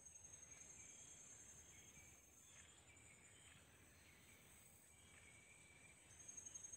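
Faint insect chorus of the rainforest: a steady, high-pitched buzzing trill that never breaks, with a second trill joining about six seconds in, and a few short chirps lower down.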